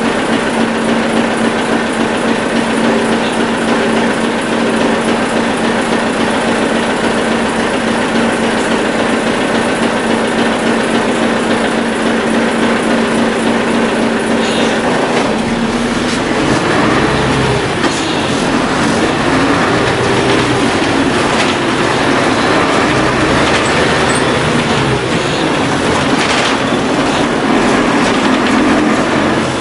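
Isuzu diesel engine of a 1997 Isuzu KC-LV380N city bus with a Nishi-Nihon Shatai 96MC body, heard from inside the cabin: idling with a steady hum while the bus stands. About halfway through, the bus pulls away and the engine revs up and falls back several times through the gears.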